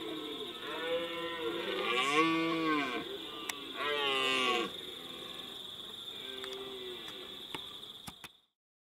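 Red deer stag roaring in the rut: several long, deep bellows, each rising and then falling in pitch, the loudest two near the middle. The sound cuts off near the end.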